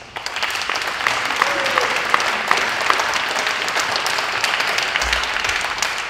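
Crowd applauding, many hands clapping together, swelling in just after the start and then holding steady.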